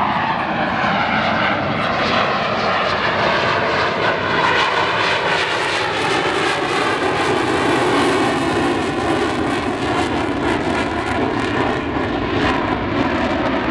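Single-engine F-16 fighter jet flying a display pass with smoke on: a loud, steady jet-engine roar whose tone sweeps and shifts as the aircraft passes and climbs away.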